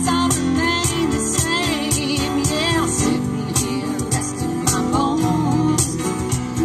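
Live band playing: strummed acoustic guitars over keyboard and percussion, with a woman singing the melody.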